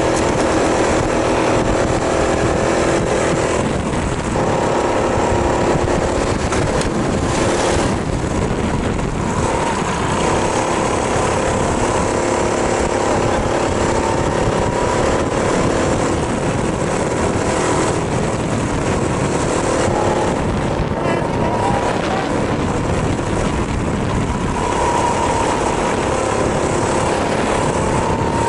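Go-kart engine running under load on track, its pitch rising and falling as the throttle is worked through the corners, with a steady rush of noise underneath.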